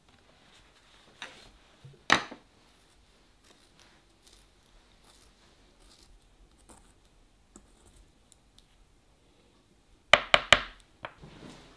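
Wooden Faber-Castell 9000 pencil being sharpened in a small handheld metal sharpener: faint scraping as the blade shaves the wood, with one louder scrape about two seconds in. Near the end comes a quick run of three or four sharp knocks, then one more.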